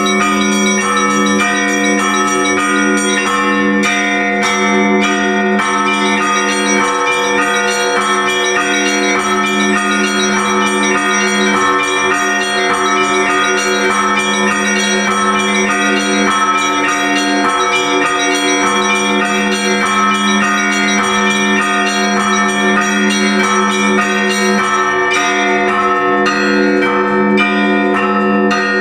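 Orthodox church bells rung together for the liturgy: quick strikes of several smaller bells over a sustained low bell tone, in a steady repeating pattern without a break.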